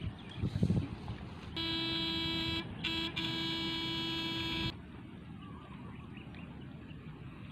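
Backpack electrofishing unit buzzing in a steady, high, buzzy tone for about three seconds, broken off twice for a moment, as current is switched through its probe rods into the paddy water to stun swamp eels. Low rustling and splashing of footsteps in wet grass and mud come just before it.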